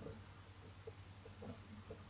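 Near silence: quiet room tone with a steady low hum and a few faint, short taps.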